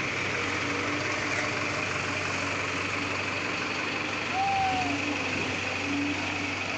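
Heavy diesel engines idling steadily, from the excavator and the flatbed truck carrying it. About four and a half seconds in, a short high squeal falls in pitch.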